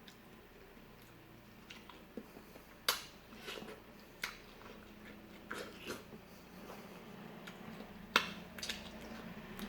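Close-up eating of fresh fruit: biting and chewing with scattered sharp mouth clicks, the loudest about three seconds in and again about eight seconds in.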